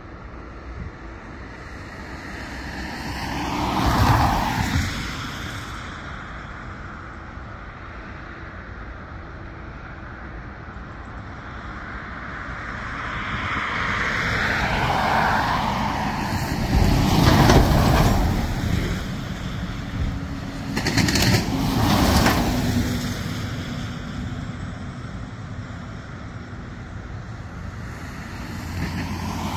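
Road vehicles passing close by one after another, each swelling and fading within a couple of seconds: one a few seconds in, then several in quick succession in the second half, over a steady outdoor rumble.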